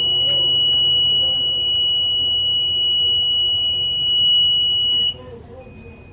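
Loud, steady, high-pitched electronic alarm tone from hospital equipment that cuts off suddenly about five seconds in. Under it a fainter short beep repeats about once a second.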